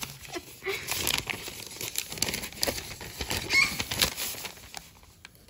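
Rustling and crinkling of a lined notebook-paper note being handled by hand, starting about a second in and dying away near the end.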